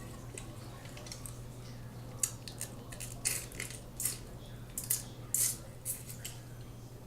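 Crab legs being eaten close to the microphone: a string of short, irregular cracks and wet smacks of shell and chewing, over a steady low hum.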